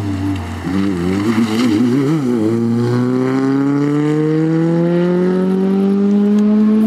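Peugeot 106 rally car's engine under hard driving: the revs waver up and down for about two seconds, then the engine pulls in one gear with a long, steady rise in pitch as the car accelerates.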